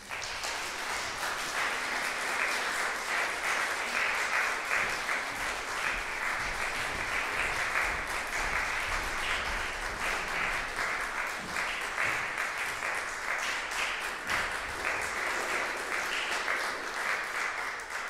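Audience applauding, many hands clapping, starting suddenly and fading away near the end.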